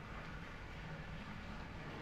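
Steady low hiss with a faint hum from a wok of curry sauce cooking over a gas burner.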